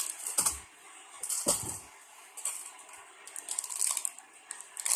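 Handling noise: clusters of quick clicks and rustles from plastic packaging being handled, with two soft thumps about half a second and a second and a half in.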